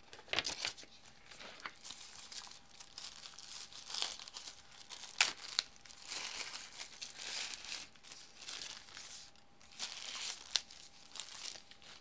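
A thin plastic bag and a folded paper manual rustling and crinkling in the hands as the speaker is unwrapped. The crinkling comes in irregular bursts, with a few sharp crackles.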